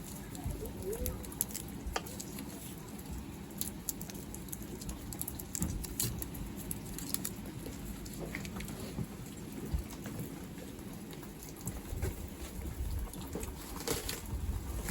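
Rain pattering, irregular drops ticking on a surface over a steady low rumble.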